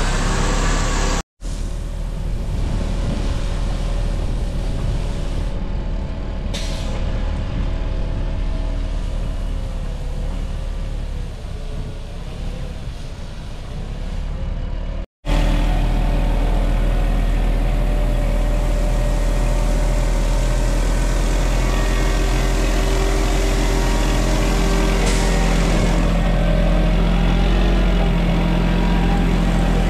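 Mack Granite water truck's diesel engine running as the truck drives across a gravel yard. The sound breaks off briefly twice, about a second in and midway, and comes back louder and heavier after the second break.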